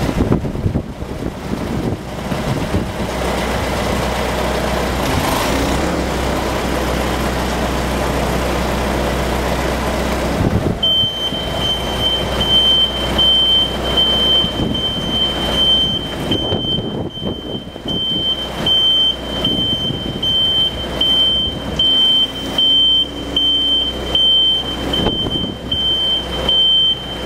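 Diesel telehandler engine running steadily. About eleven seconds in, a high-pitched reversing alarm starts, beeping about once a second.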